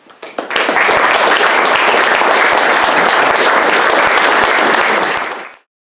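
Audience applauding: a few first claps that swell within about half a second into steady applause, which cuts off suddenly near the end.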